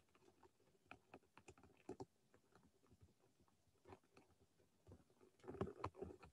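Faint, irregular clicks and taps from handling a computer mouse and keyboard, with a busier cluster near the end.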